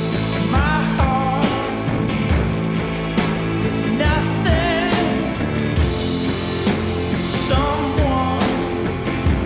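Background music: a rock song with a sung vocal over a steady beat.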